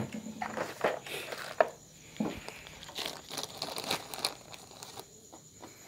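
A thin plastic bag crinkling as hands handle and open it, in irregular bursts of rustling.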